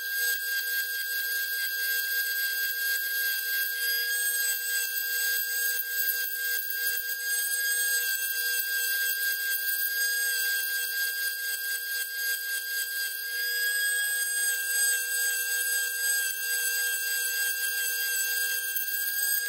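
Dremel rotary tool running with a steady whine as its bit drills and grinds out the plastic of a model kit's hull, a rough, uneven grinding over the tone.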